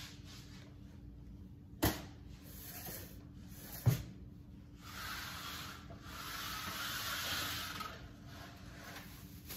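Household items being handled on pantry shelves: two sharp knocks about two seconds apart as things are set down, the second the louder, then a few seconds of rubbing and rustling.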